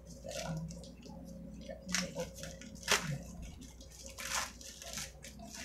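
Crinkling and rustling of a white packaging wrapper being opened by hand, in a string of short crackles, the loudest about two, three and four and a half seconds in.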